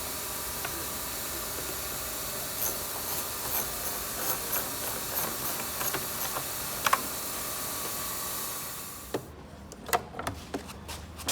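A steady hiss with scattered light clicks and taps of parts being handled on the plastic A/C evaporator housing. The hiss cuts off suddenly near the end, leaving a few sharper knocks.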